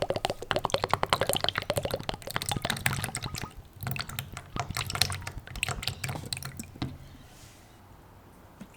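Polyurethane being thinned with mineral turpentine in a container, the liquid splashing and dripping. A dense run of fine splashes for the first few seconds thins out and fades near the end.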